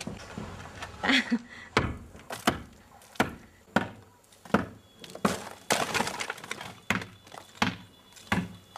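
Repeated blows of a hand tool striking and breaking material, about one every 0.7 seconds, each a sharp knock with some cracking: the adobe-brick house being knocked apart by hand.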